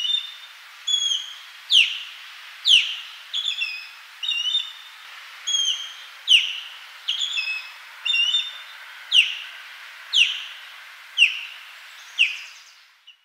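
Osprey calling: a series of sharp, downward-slurred whistles, about one a second, alternating with quick groups of two or three shorter whistled notes, over a steady hiss.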